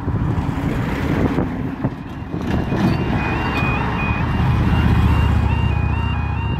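Level crossing warning alarms start about two and a half seconds in: a two-tone alarm stepping back and forth between two high pitches, signalling that a train is approaching and the barriers are about to lower. Under it, a lorry and a motorcycle drive over the crossing, their engine and tyre noise loudest a little after the middle.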